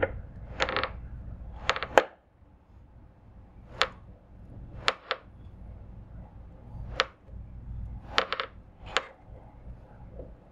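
Combination pliers clicking against a nut and bolt as they grip and turn it tight, a dozen or so sharp metal ticks at irregular intervals about a second apart.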